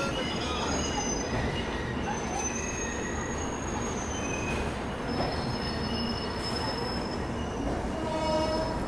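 Passenger train rolling slowly out along a station platform, its steel wheels squealing in thin, high-pitched tones that come and go over a steady rumble.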